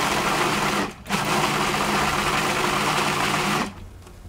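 Cuisinart 14-cup food processor pulsed to blend a chunky artichoke pesto. Its motor and blade run twice: a short run that stops about a second in, then after a brief gap a longer run of about two and a half seconds that cuts off near the end.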